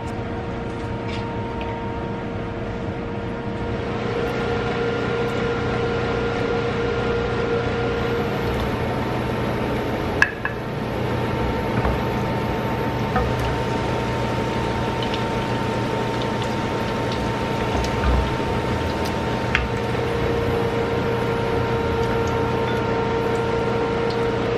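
Garlic cloves frying in oil in a pan on an induction cooktop: a steady sizzle over the cooktop's constant hum. There is one sharp knock about ten seconds in, and a few lighter taps of the wooden spatula after it.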